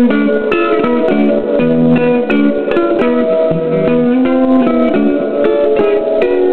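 Guitar played through a Gibson GA-20 RVT Minuteman amplifier with its reverb turned up: a steady run of picked notes and chords, each note ringing on.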